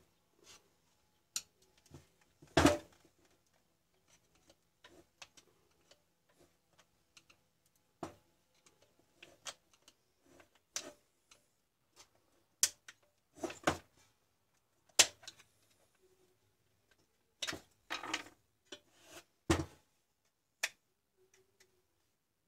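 Irregular clicks and knocks of a screwdriver and plastic housing being handled while the screws of a large angle grinder's switch cover are undone and the cover is taken off. The loudest knocks come about two and a half seconds in and about fifteen seconds in. The grinder's motor is not running.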